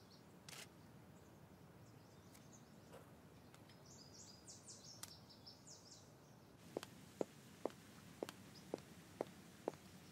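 High-heeled shoes walking on stone paving: sharp, regular clicks about two a second, starting about two-thirds of the way in. Before that, faint bird chirps over quiet outdoor ambience.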